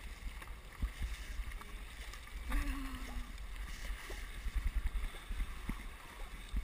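Dragon boat under way, with wind buffeting the camera microphone and water rushing past the hull. The crew's paddle strokes splash and knock irregularly, and there is a brief shout about two and a half seconds in.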